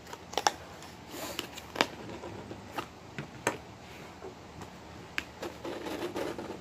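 A cardboard shipping box being worked open by hand: irregular sharp clicks and taps from the flaps and packing tape, with a light rustle building near the end.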